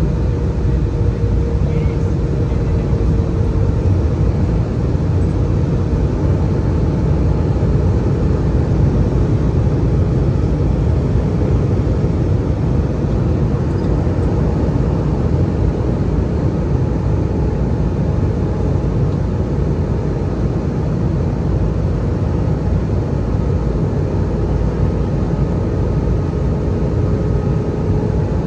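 Airbus A320-200 cabin noise: a steady deep roar of the engines and airflow around the fuselage, with faint steady whining tones over it.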